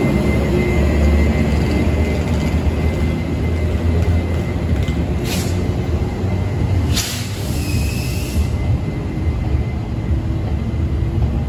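Chu-Kuang Express passenger coaches, hauled by an E200-class electric locomotive, rolling slowly out of the station: a steady low rumble of wheels on rail, with two short, sharp high-pitched noises about a second and a half apart in the middle.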